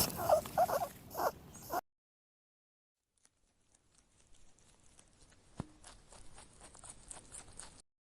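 Rabbit making a quick run of short squeaks and grunts that stops abruptly under two seconds in. After a silent gap come faint, scattered clicks and rustles.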